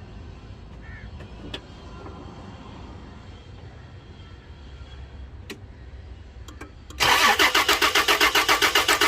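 Toyota Land Cruiser petrol engine cranked on the starter, starting about seven seconds in and turning over in loud, even pulses of about five a second without catching: a crank-no-start, cranked here to check for spark. A few faint clicks come before it.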